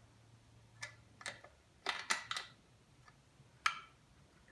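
Scattered sharp metallic clicks and taps of a wrench and a bolt being worked out of the outboard's lower unit, about half a dozen, irregularly spaced.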